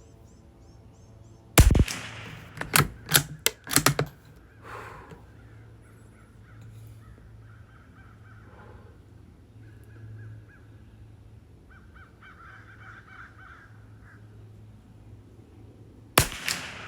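Savage Mark II .22 LR bolt-action rifle fires a shot about a second and a half in, followed by a quick run of sharp clicks as the bolt is worked to chamber the next round; a second shot goes off near the end. Crows caw faintly in the background.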